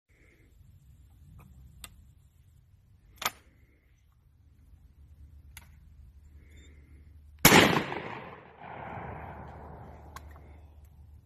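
A single shot from a FedArm SS12 single-shot break-action 12-gauge shotgun about seven and a half seconds in, by far the loudest sound, its report trailing off over the next couple of seconds. Before it, a few light clicks as a shell is loaded and the action handled; another click afterwards as the action is broken open.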